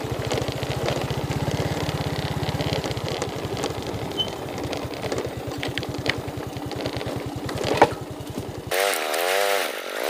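Small motorcycle engine running at low revs with a steady pulsing beat as the bike rolls over a dirt track, with scattered clicks and rattles. Near the end the low beat cuts off and a higher engine note that rises and falls takes over.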